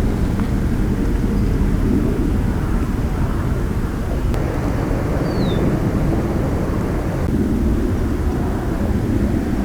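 Strong wind buffeting the microphone: a loud, steady low rumble. A single short, high, falling chirp sounds about five seconds in.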